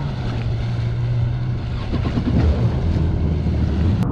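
Yamaha WaveRunner personal watercraft engine running at speed across choppy water. Its steady drone shifts lower about halfway through, under rushing wind and water noise.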